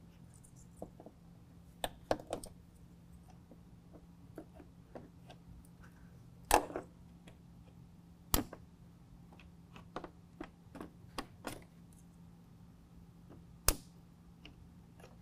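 Scattered clicks and snaps of plastic push-pin retainers being pried loose from a plastic radiator shroud with a small metal pick. The tool taps on the plastic, and three sharper snaps stand out, about midway and near the end.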